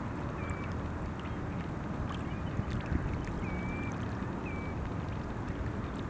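Steady low outdoor rumble, like wind on the microphone, with a few short, thin whistled bird calls about half a second, three and a half and four and a half seconds in.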